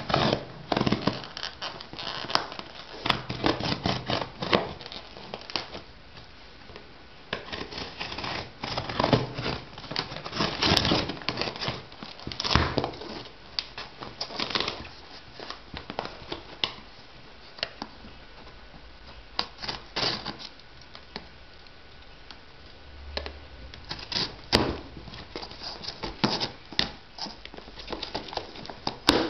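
Packaging being handled during an unboxing: irregular scratching, crinkling and tearing with sharp knocks and clicks scattered throughout.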